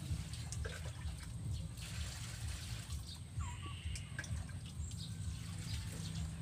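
Water splashing and dripping in short irregular spurts as it is poured from a dipper to rinse fish on a board, over a steady low rumble. A brief bird call comes about halfway through.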